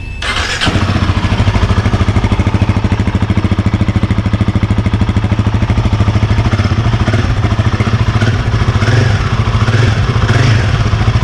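Royal Enfield Himalayan 450's 452 cc single-cylinder engine starting: a brief crank catches within the first second, then the engine idles through the exhaust with a steady, even beat.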